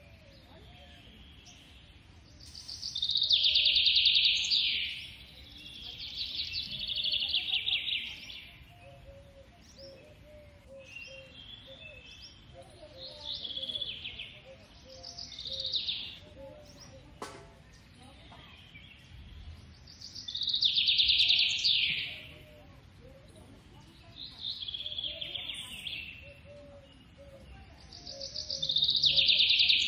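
Bursts of high, rapid trilling chirps, each one to two seconds long, come every few seconds, about six times. Softer short chirps sound lower down between them. The calls are of the kind made by a palm squirrel or a small bird.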